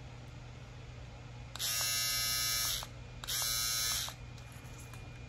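Small battery-powered women's electric shaver switched on twice, buzzing for about a second each time with a short pause between.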